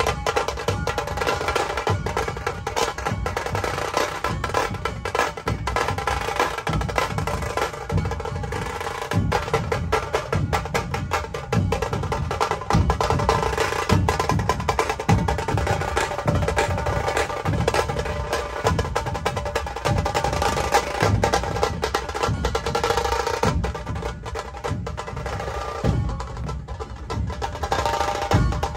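Drum-led music with fast, dense drum strokes.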